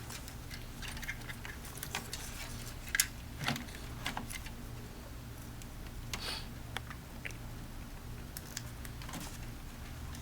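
Scattered light plastic clicks and rattles, a few seconds apart, from a zip tie and battery pack being handled and fitted to the recliner's power-supply cage, over a low steady hum.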